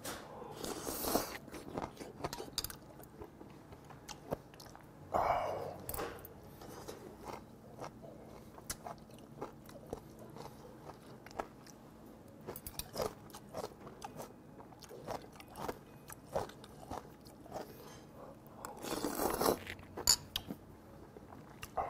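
Close-up eating sounds: chewing and smacking on rice soaked in broth, with a few longer slurps from a ceramic bowl held to the mouth (about a second in, around five seconds in, and near the end) and many small clicks of chopsticks on the dishes.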